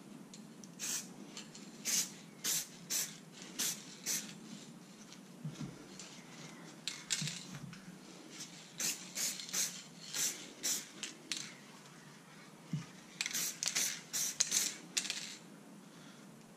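Aerosol spray paint can hissing in short bursts, about twenty quick squirts in four groups with pauses between.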